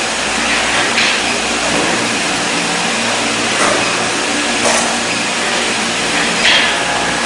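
Steady machine noise, like a motor or blower running, with short hissing bursts about four times.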